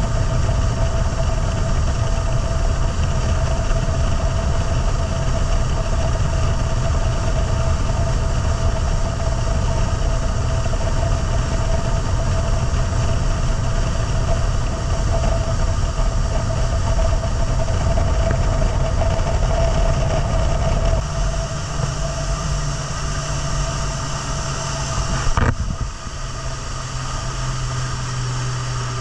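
Boat engine running steadily underway. About 21 seconds in it settles to a lower, quieter drone as it is throttled back, with a short sharp knock a few seconds later.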